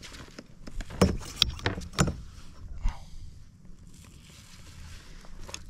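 A few sharp knocks and clatter of a just-caught fish being handled on a kayak, the loudest about one and two seconds in, followed by a faint steady hiss.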